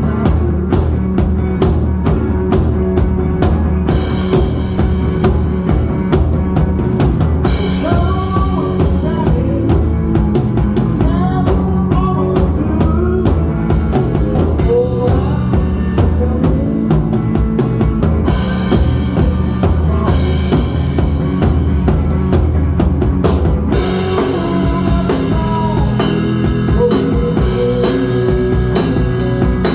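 Live rock band playing: a drum kit with cymbal crashes and a lead line with bending notes, over electric guitar and bass guitar.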